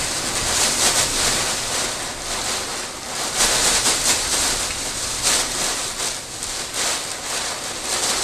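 Torrential wind-driven rain and gusting wind of a severe storm cell, a loud, steady rushing hiss that swells and eases with the gusts every second or two. It is the storm that the person filming takes for a tornado passing at close range.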